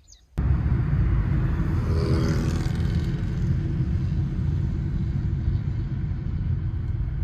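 A car driving, giving a steady low rumble of engine and road noise that starts abruptly about a third of a second in.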